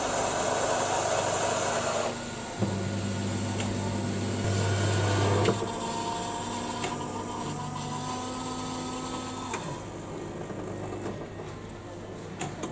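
Happi Koffie coffee vending machine's motors and pumps running as it makes a drink. A whirring noise lasts about two seconds, then comes a deep hum, then a steadier whine while milk streams into a paper cup. The machine goes quieter after about ten seconds.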